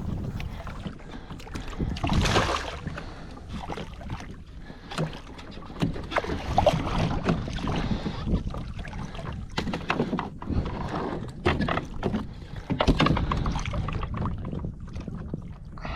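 Water splashing and sloshing around a fishing kayak, with irregular knocks and clunks against the hull.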